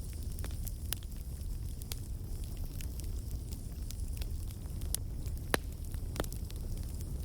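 Fireplace fire crackling: irregular sharp pops and snaps over a steady low rumble of the flames, with two louder pops past the middle.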